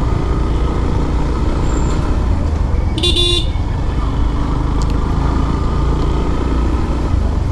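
Yamaha FZS single-cylinder motorcycle engine running steadily at low road speed. A horn toots once, briefly, about three seconds in.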